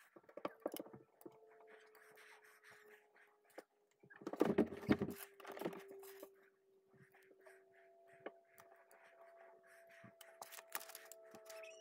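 A small plastic building-brick motorcycle being handled and turned in the fingers: scattered light plastic clicks and rubbing, with a louder rustle of handling about four seconds in. A faint steady tone hums underneath.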